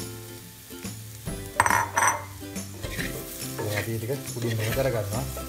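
Boiled manioc chunks stirred with a spoon in a clay pot, sizzling in hot coconut oil with onion, garlic and chilli, with two louder strokes of the spoon against the pot about one and a half to two seconds in.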